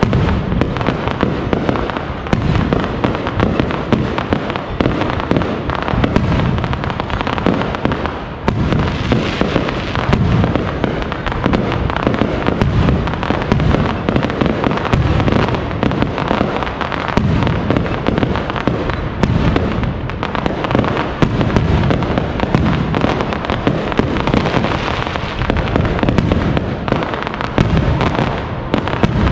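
Aerial fireworks display: a loud, unbroken barrage of shell bursts and crackling stars going off in quick succession.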